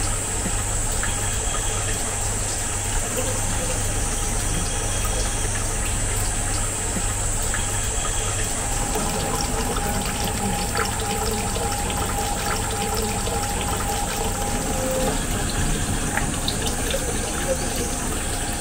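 Water pouring steadily from a pipe into a stone trough, with small splashes as a hand works in the water.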